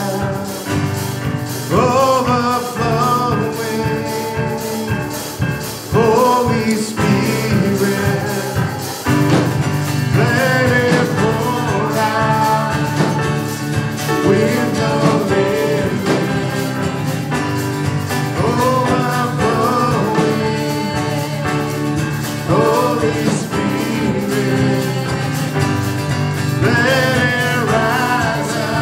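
Live worship band playing a gospel song: singers carrying the melody over acoustic guitar and keyboard accompaniment.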